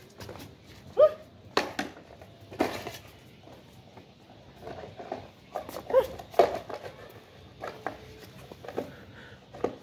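Belgian Malinois giving short, excited barks and yelps in play, several separate calls, the loudest about a second in and again about six seconds in.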